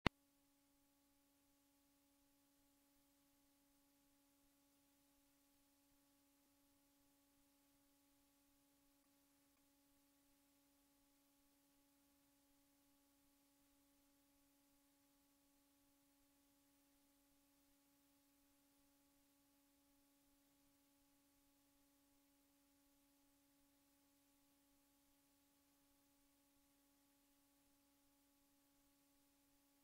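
Near silence: a very faint, steady hum with a few overtones under a low hiss.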